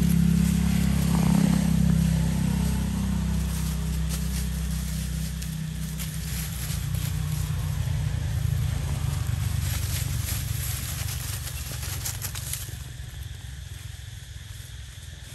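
A motor engine running steadily, its hum fading gradually. Crackling and rustling of dry leaves as monkeys move over the leaf litter come thickest for several seconds in the middle.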